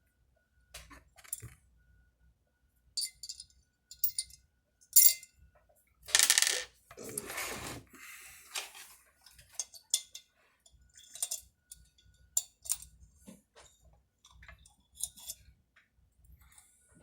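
Small steel bolts and tools clinking and tapping against metal chainsaw parts while being handled, with a louder scraping rustle lasting about two seconds, around six seconds in.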